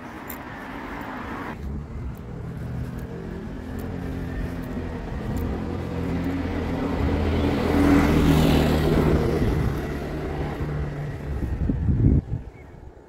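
A vehicle passing close: engine hum and tyre hiss build steadily to a peak about eight seconds in and ease off, then cut off suddenly after a brief loud moment near the end.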